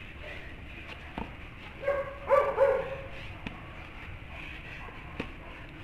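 A dog barking: a quick run of three short barks about two seconds in, then only a few faint knocks.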